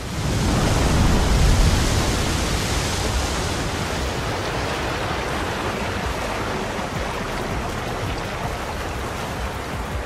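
Churning, rushing sea water with a deep rumble, swelling to its loudest about a second and a half in and then holding as a steady rush.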